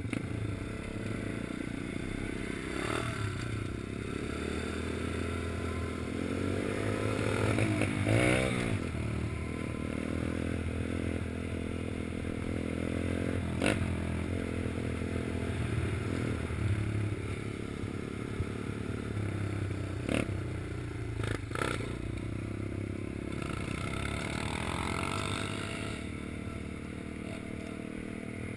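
RebelMaster pit bike engine running while being ridden, its pitch rising and falling with the throttle. Several sharp knocks and rattles come from the bike jolting over rough ground.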